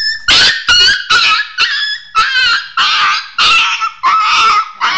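Boxer puppy yelping and crying in pain, about ten high, sharp cries in quick succession, as she is needled at the base of her tail for a local anaesthetic injection before tail docking.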